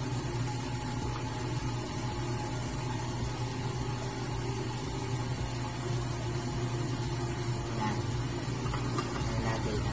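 Steady low machine hum, even in level throughout, with faint soft handling noises near the end.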